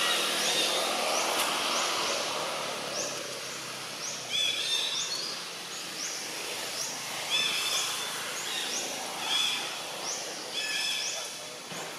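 Birds calling in the trees: short rising calls repeat about once a second, and from about four seconds in a louder call with several stacked pitches comes in every second or two, over steady outdoor background noise.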